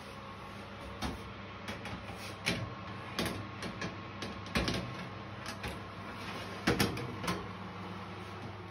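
A run of sharp clicks and knocks as a built-in oven door is opened and a metal baking tray is slid back in onto the oven rack, over a steady low hum.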